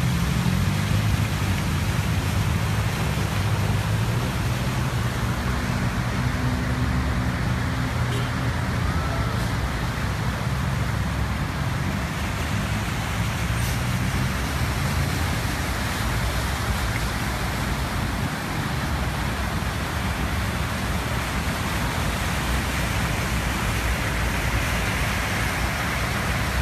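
Road traffic moving slowly through floodwater: vehicle engines running low and steady, with tyres swishing and splashing through standing water.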